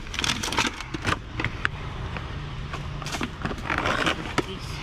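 Plastic bakery bags crinkling and rustling in clusters of short crackles as packages of bread are handled, over a low steady hum.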